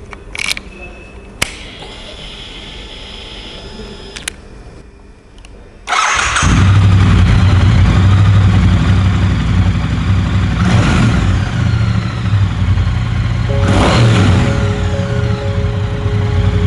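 A few sharp clicks, then about six seconds in a Triumph motorcycle engine starts and settles into a steady low idle, blipped briefly twice.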